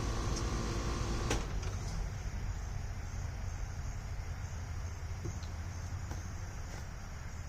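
Steady low background rumble with a faint hiss, broken by a single click about a second in.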